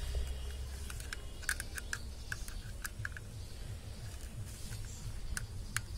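Small scattered clicks and taps of a screwdriver and wire working against a plastic switch-socket board as a neutral wire is fastened under its terminal screw, over a low steady hum.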